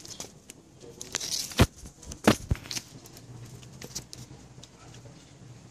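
Raindrops dripping and pattering into a muddy puddle, with a few sharp taps about one and a half and two and a half seconds in.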